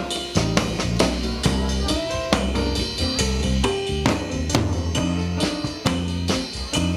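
Rock band jamming at a studio rehearsal, the drum kit keeping a steady beat of about two hits a second under the rest of the band.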